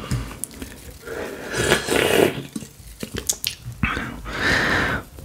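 Breathy, unintelligible whispering and exhales close to the microphone, in two stretches, with a few wet mouth clicks between them.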